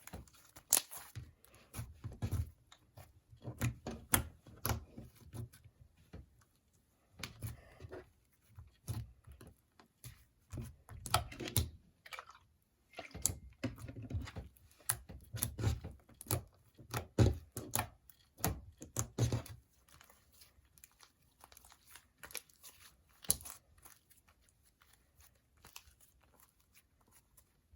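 Slime with Play-Doh worked into it being kneaded and stretched by hand, giving irregular runs of sticky crackles and pops with a few quieter pauses.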